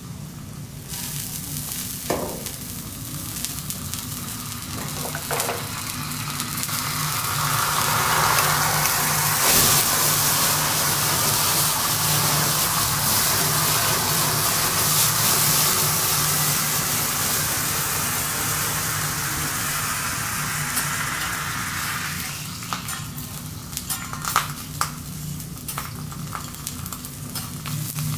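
Food sizzling on a hot teppanyaki griddle. It swells into a loud hiss about seven seconds in, holds for some fifteen seconds and then dies down, with a few sharp clicks near the start and the end. A steady low hum runs underneath.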